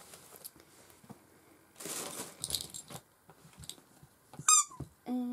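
Items being handled and rustled, with a quick high squeak that falls in pitch about four and a half seconds in and a short held low hum near the end.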